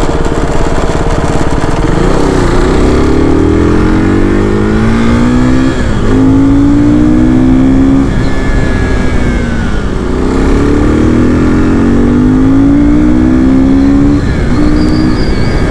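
KTM RC390's single-cylinder engine accelerating hard on the road, the revs rising in long pulls with an upshift about six seconds in and another near the end. It eases off briefly in the middle before pulling up again, over steady low wind rush.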